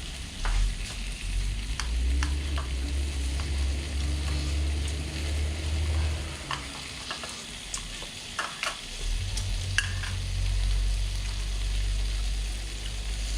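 Meat sizzling on a mookata grill-hotpot pan, a steady hiss with scattered sharp clicks of utensils against the pan. A low rumble comes and goes underneath, dropping out for a few seconds past the middle.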